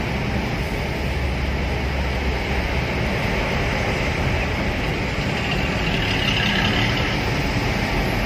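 Loud exhaust of a PO Haryanto intercity coach running just ahead, a steady rumble heard from inside a vehicle following close behind. A higher hiss swells briefly about six seconds in.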